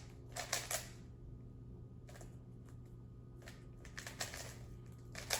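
Scattered light clicks and clacks, a quick cluster in the first second and then single ones every second or so, over a steady low hum.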